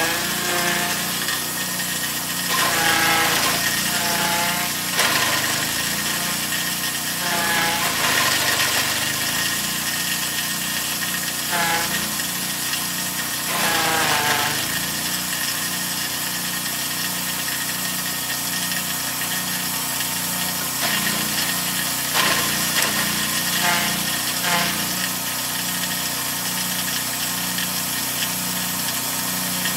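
A 7 hp petrol engine running a forage chopper-grinder as corn stalks are fed in. Its pitch sags several times under the load and recovers, because the stalks are fed in too fast, and the engine comes close to stalling.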